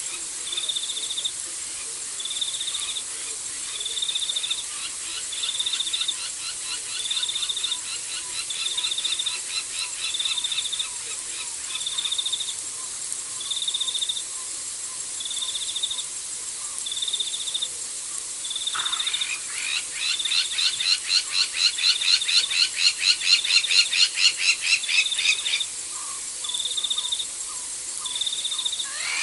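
Night chorus of insects and frogs: an insect trills in short, evenly spaced bursts about every one and a half seconds, and about two-thirds in, frogs start calling in a fast, loud run of clicking pulses that stops a few seconds later.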